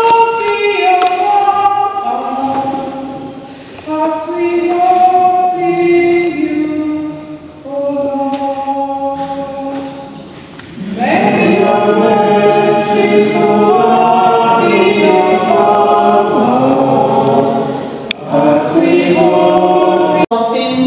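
Church choir singing in a reverberant church. After a short pause about ten seconds in, the singing comes back fuller and louder.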